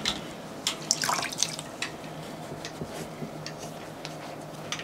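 A damp cleaning sponge dabbing and scrubbing a hiking shoe, giving scattered small wet clicks and drip-like ticks over a low steady hum.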